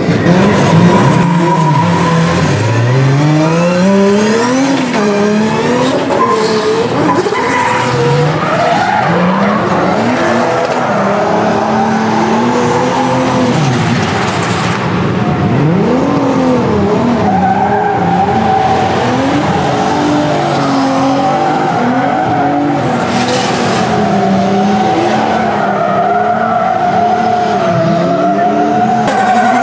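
Drift cars on track: engines revving up and down again and again as the throttle is worked, over a long, steady squeal of sliding tyres.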